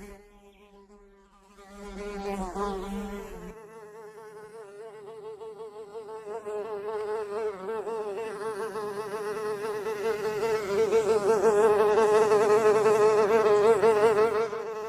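A fly buzzing in flight, its wing-beat tone wavering in pitch. It is faint for the first second or so, comes in about two seconds in, and grows louder toward the end as the fly comes closer.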